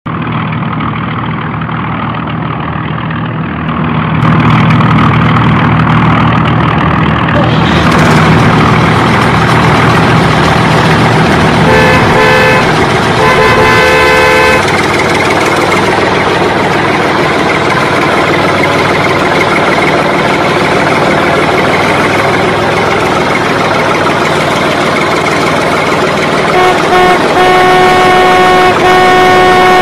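Vehicle sound effects: an engine running with a low hum for the first several seconds, then steady traffic noise. A horn gives two short blasts about halfway through, and a truck horn sounds repeatedly near the end.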